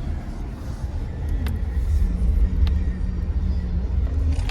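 Inside a moving car's cabin: steady low rumble of the engine and tyres on a snowy road, with a few light clicks and a steady hum that rises about two seconds in and fades before the end.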